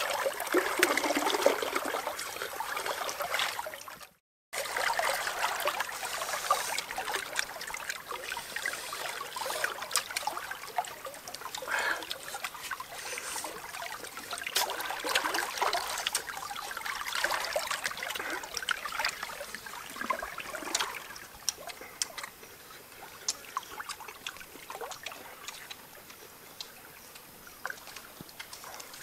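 Shallow stream water trickling and running, with many small clicks scattered over it. The sound cuts out briefly about four seconds in and grows fainter toward the end.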